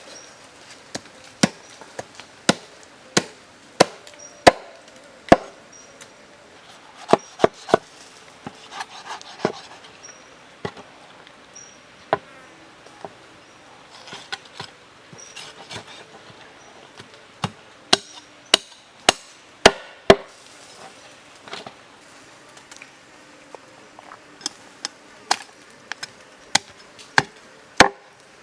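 Knife chopping on a wooden cutting board: single sharp chops at an irregular pace, often less than a second apart, with a few short pauses.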